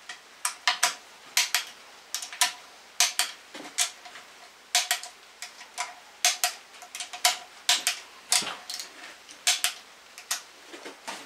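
Click-type torque wrench on oil pan bolts: sharp metallic clicks, often in quick pairs, about one to two a second, as each bolt is brought back up to its torque setting.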